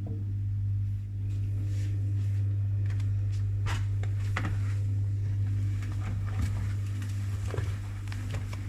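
Washing machine running with a steady low hum, with scattered light clicks and knocks over it.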